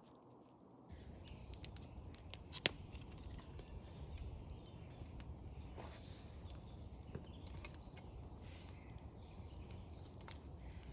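Quiet woodland ambience with scattered faint clicks and one sharp snap about two and a half seconds in.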